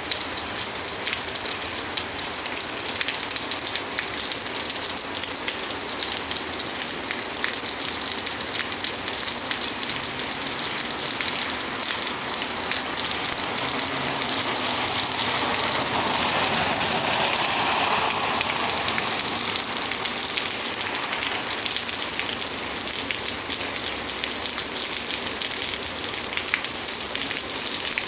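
Steady rain shower falling, with close drops ticking throughout; the sound swells for a few seconds about halfway through.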